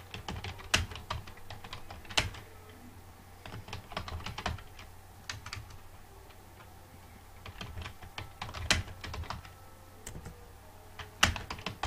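Typing on a computer keyboard: quick runs of keystrokes in several bursts, with short pauses between them.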